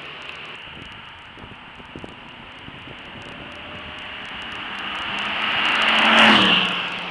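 A sports car passing at speed on a wet track. It approaches over a few seconds and is loudest about six seconds in, with the hiss of tyres on water. The engine note then drops in pitch as the car goes away.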